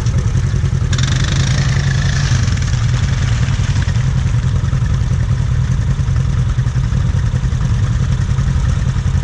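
An ATV engine runs steadily with a low drone. About a second in, a rush of hissing noise rises and fades over the next two seconds.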